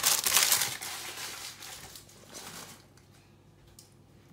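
Crinkling rustle of a thin sheet being handled, fading away within the first two seconds, then faint room tone.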